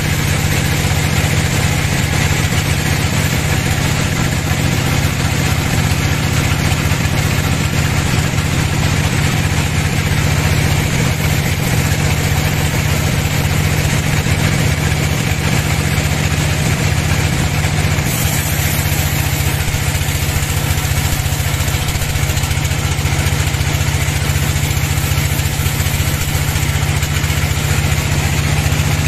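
Band sawmill running steadily while its blade cuts through a large hardwood log: a loud, even machine drone with a low hum under the hiss of the cut. About two-thirds of the way in the sound shifts, the hum changing and a sharper high hiss coming in.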